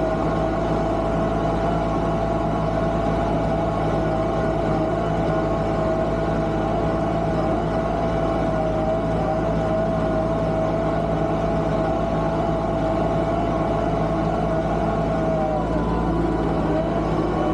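Tractor engine running steadily under load, with a steady whine over the engine note that wavers and dips briefly near the end.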